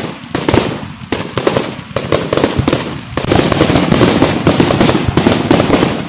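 Aerial fireworks bursting in quick succession, a string of sharp bangs that thickens about three seconds in into a dense, rapid crackle.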